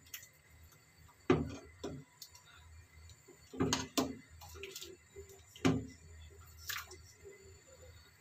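Ladle knocking against the sides of a large steel stockpot while harira soup is stirred and its flour-and-tomato thickener is poured in, about six separate knocks spread over several seconds. The steady stirring keeps the thickener from sticking or lumping.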